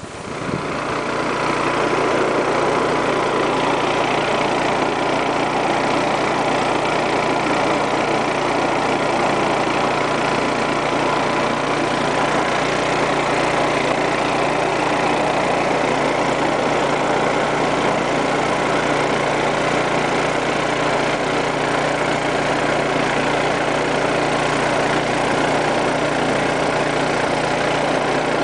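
Engine of a drain-jetting machine running steadily while its high-pressure hose flushes water through the drain; it comes up to speed over the first couple of seconds.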